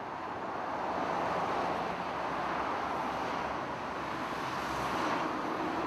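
Motorway traffic: a steady rush of passing cars and tyre noise, swelling as vehicles go by about a second in and again near the end.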